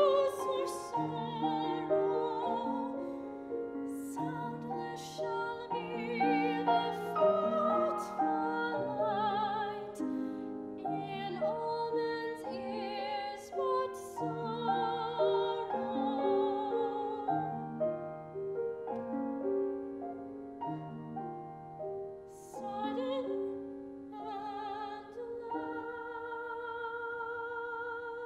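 Classical soprano voice singing an art song with wide vibrato, accompanied by a grand piano. Near the end she holds one long note over the piano.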